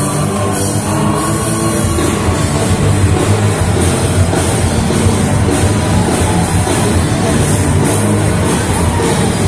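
Loud live rock band playing, with drums and guitars through the PA, heard from within the crowd in a hall.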